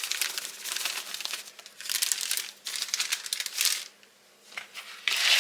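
Plastic bag of mini marshmallows crinkling as it is handled, in several bursts with a short pause about four seconds in.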